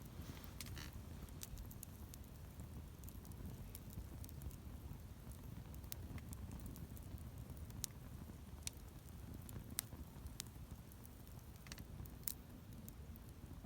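Wood campfire burning: scattered sharp crackles and pops, about a dozen, over a low steady rumble.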